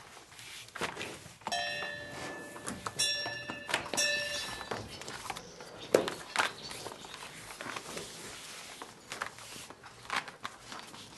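Knocks, thuds and rustling of leather yoke straps being wound and pulled tight around a pair of cows' horns as they are yoked, with a sharp knock about six seconds in. For about three seconds, from about a second and a half in, a metallic ringing of several tones sounds over the knocks.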